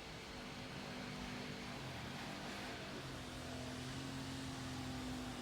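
Steady engine hum with a rushing noise, growing slightly louder toward the end.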